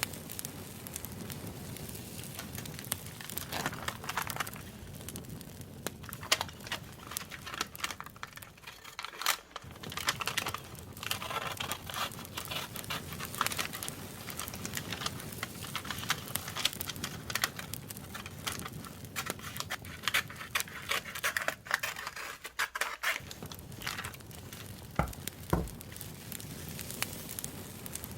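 Paper and plastic crinkling and rustling with scattered small taps and clicks, as journaling materials are handled. Underneath runs a steady crackling campfire that briefly drops out twice.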